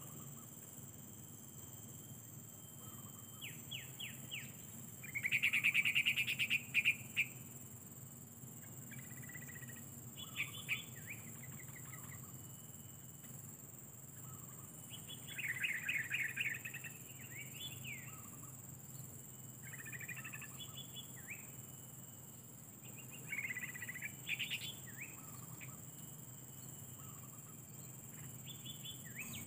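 Yellow-vented bulbuls calling: bursts of rapid chattering notes that come and go, loudest about five to seven seconds in and again around the middle and two-thirds of the way through.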